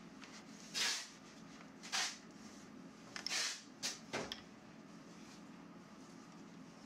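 About five short swishes and rustles of PVC stretch-ceiling film being slid and smoothed by hand over a welding machine's bed, over a faint steady low hum.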